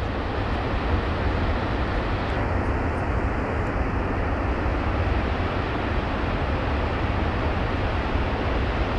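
Glacial lake outburst flood: a torrent of muddy, debris-laden water rushing down a valley floor, a steady loud rushing noise with a deep rumble underneath.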